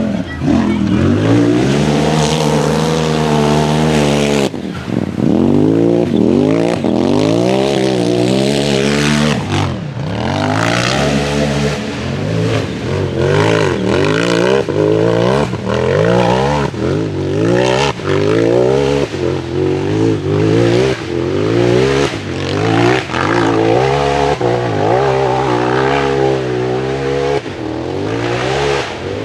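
Off-road UTV engine revving hard, the throttle opened and let off again and again so that the pitch climbs and drops about once a second.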